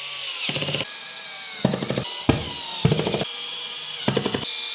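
Cordless drill driving small screw-in dowels into particleboard panels, its motor whining steadily. Several short bursts of rapid clicking come as the torque clutch, set to 5, slips once each dowel is seated.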